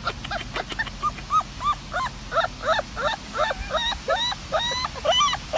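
Puppy yipping: a steady run of short, high-pitched yips, about three a second, starting about a second in after a few light clicks.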